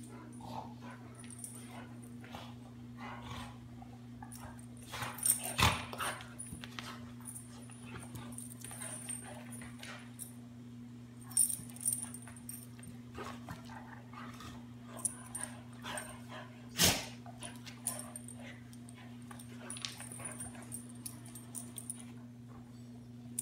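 Two dogs play-wrestling: scuffling and dog play noises, with three louder sudden sounds about five, eleven and seventeen seconds in. A steady low hum runs underneath.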